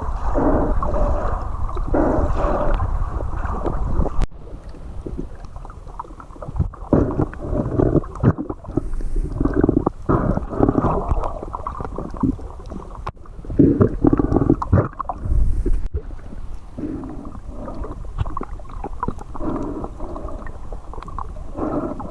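Wind buffeting the microphone in uneven gusts over a low rumble, with a few abrupt breaks.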